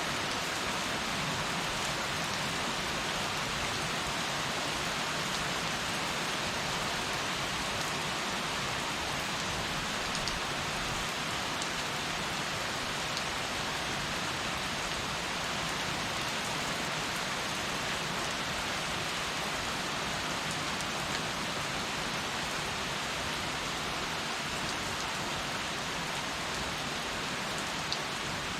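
Heavy rain falling steadily, a dense even hiss with a few single drops ticking on a surface.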